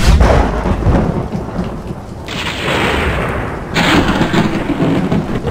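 Thunderstorm sound effects: a loud clap of thunder rolling into a rumble, a hiss of rain, and a second thunder crack nearly four seconds in.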